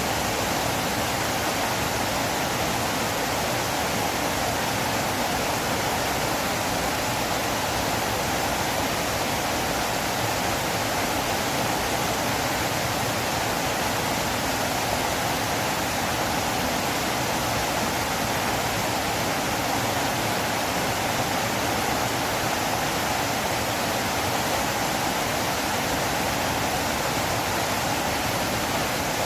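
Flowing river water, a steady even rushing without a break or change.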